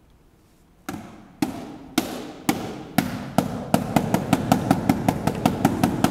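Percussion struck in an accelerating beat, starting about a second in: sharp hits about two a second that speed up steadily to about five a second, each with a short ring.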